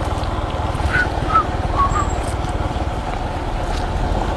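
A 150 cc motorcycle engine running steadily under way, with wind and road noise; a few short high chirps come about a second to two seconds in.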